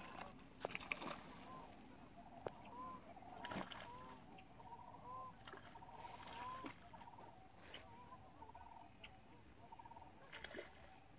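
Distant sandhill cranes calling: faint, repeated rolling, trilled calls throughout, with a few soft knocks mixed in.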